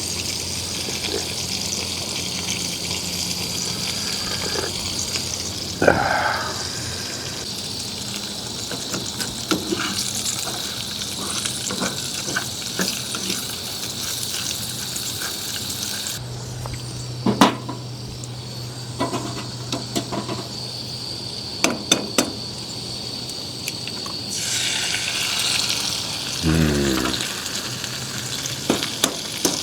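Food sizzling steadily in a frying pan over a butane camp stove, with occasional clicks and taps of a utensil on the pan. The sizzle drops away for several seconds in the middle, then comes back.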